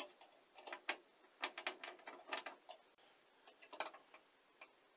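Faint clicks and taps in small irregular clusters as a TV wall-mount bracket and its bolts are handled and fitted to the back of a flat-screen TV.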